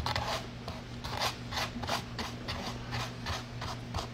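Plastic fork scraping and picking at baked chicken in a foam takeout container, in short strokes about three a second.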